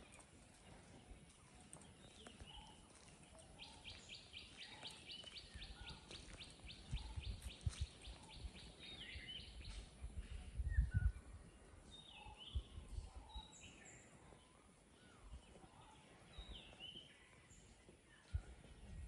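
Assorted birds calling and chirping in short, scattered calls, with a rapid even trill of about five notes a second running for some six seconds in the first half. Low gusts of wind buffet the microphone around the middle.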